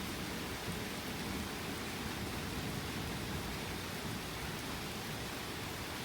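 Rain falling steadily in a thunderstorm: an even, unbroken hiss with no thunder clap standing out.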